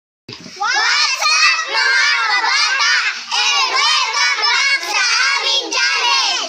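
A group of about eight young children shouting together in unison, in a sing-song way. The voices start about a third of a second in and cut off abruptly at the end.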